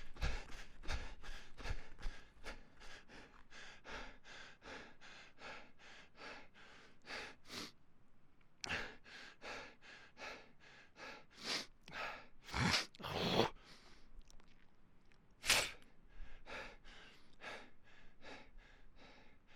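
A person panting hard while running: quick, even breaths at about two to three a second. A few deeper, louder gasps come near the middle.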